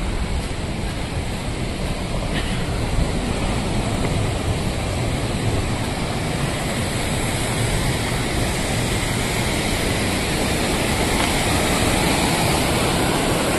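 Rushing floodwater of a mountain stream swollen by a cloudburst: a steady, loud rush of water that grows a little louder near the end.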